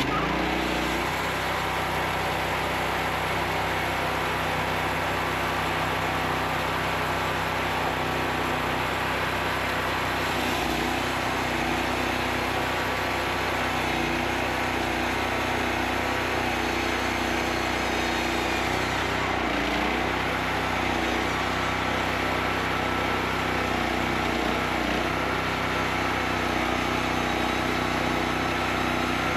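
Engine of a homemade sawmill running steadily, its pitch dipping briefly about two-thirds of the way through and again a little later.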